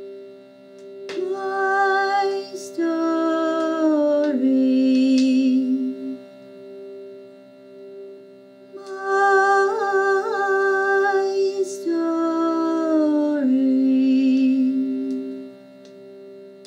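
A slow, wordless melody from a woman's voice over a steady held drone, in two pairs of long phrases that waver and step downward, with a quieter stretch of drone alone between them.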